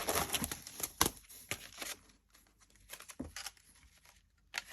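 Packaging being handled and torn open: crinkling and tearing, busiest in the first two seconds, then a few scattered clicks.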